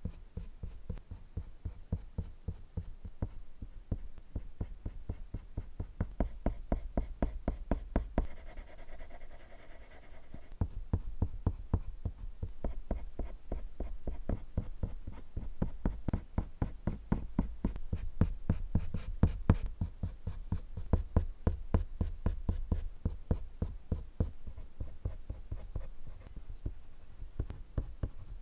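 Prismacolor colored pencil scratching on paper in quick, repeated short shading strokes, several a second.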